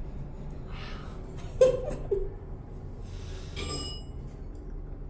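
Old elevator's car and doors clunking: a sharp metallic knock with a short ringing tone about one and a half seconds in, a softer knock half a second later, and faint jingling rattles, over a steady low hum.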